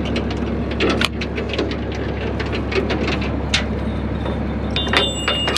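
Metal chain and hooks clinking and rattling as they are unhooked by hand from the back of a dump truck, over a steady low engine idle.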